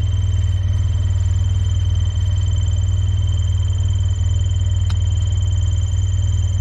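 Vehicle engine running with a steady, loud low rumble, heard from on board while driving, with a faint steady high-pitched whine above it.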